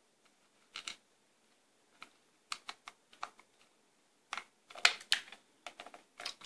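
Light plastic clicks and taps from a black plastic USB speaker bar's housing being handled and its parts fitted together. They come irregularly, with a louder cluster about five seconds in.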